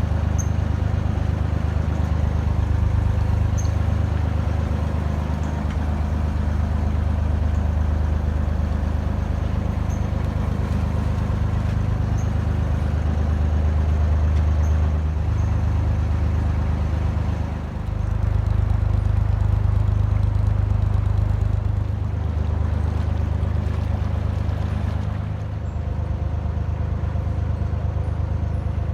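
A Dutch barge's inboard engine running steadily under way, a deep low hum; its note shifts a little about two-thirds of the way through and again near the end.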